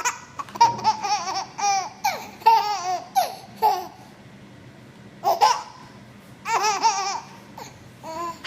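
Baby laughing in repeated high-pitched giggling bursts, a quick run of them in the first few seconds, then a pause and more laughing later.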